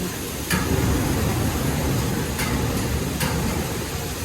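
An engine running with a low rumble that grows louder about half a second in, with a few sharp clicks on top.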